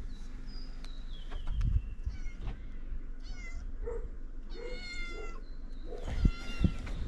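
A domestic cat meowing several times, a few separate high calls. A couple of low thumps come near the end.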